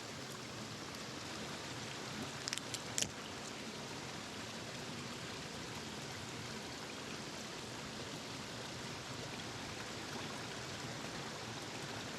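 Steady rush of a small river's current running over ripples, with a few small clicks about two and a half to three seconds in.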